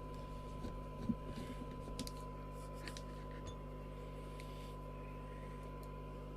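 A steady electrical hum with a thin steady tone near 1 kHz. A few faint clicks and knocks come in the first three seconds, then only the hum.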